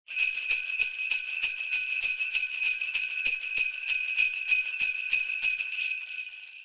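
Jingle bells shaken in a steady rhythm, about three shakes a second, fading out near the end.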